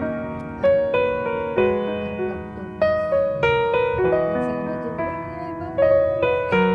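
Background piano music: a slow melody over sustained chords, with notes struck every second or so and left to ring.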